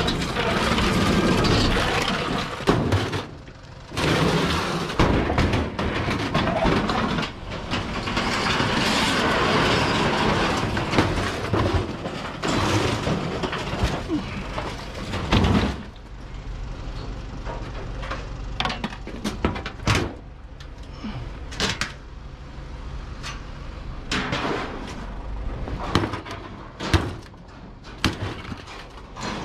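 A washing machine's sheet-metal cabinet scraped and shoved around on concrete for about the first half, then a run of sharp hammer knocks, a second or two apart, as parts inside the cabinet are beaten loose for scrap.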